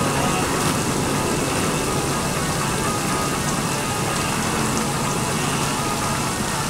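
Steady splashing hiss of water jets spraying into a swimming pool.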